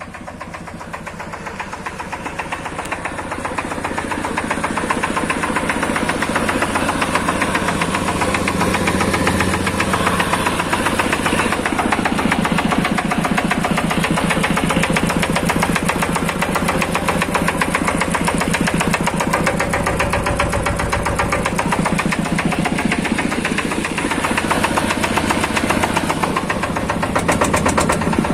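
The S-15 engine of a yellow tractor running steadily with a rapid, even knocking beat. It grows louder over the first few seconds, then holds steady.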